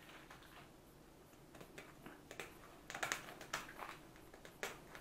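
Kitchen scissors snipping through carp rib bones: a run of sharp, crunching clicks starting about halfway through. The scissors are too weak for the bones.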